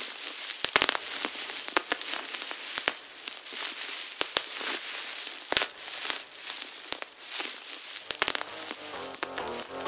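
Intro of an electronic music track: a crackling noise with scattered sharp clicks and pops. Pitched synth notes and a bass line come in about eight seconds in.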